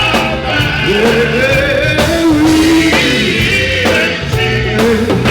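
A live band and a singer performing a song. The lead voice holds long notes and slides between them over the full band, with a shouted "yeah" about a second in.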